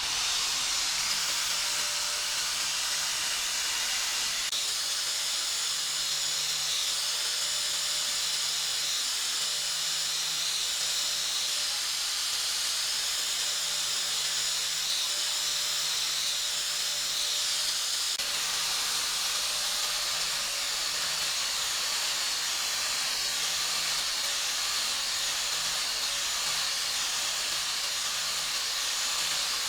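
Steady, unbroken hiss of compressed air jetting from a nozzle, starting abruptly, with a faint low hum underneath.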